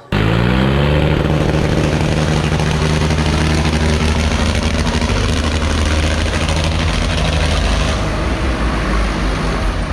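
Farmtrac 60 tractor's diesel engine revving up in the first second, then running steadily at high revs while the tractor drives.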